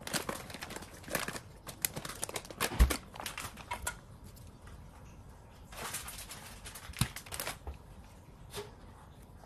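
Plastic food packets crinkling and rustling as they are handled on a kitchen counter, with scattered light clicks and a soft thump about three seconds in.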